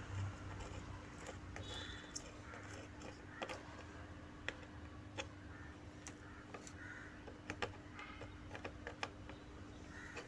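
Faint, scattered light clicks and taps of small hand tools on a circuit board while an IC is being fitted and soldered, over a steady hum.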